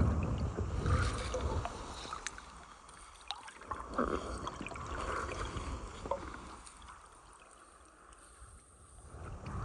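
Water sloshing and trickling close to the microphone, uneven in loudness, with scattered small knocks and clicks.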